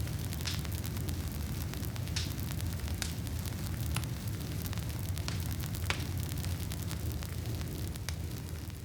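Wood campfire crackling: irregular sharp pops every second or so over a steady low rumble.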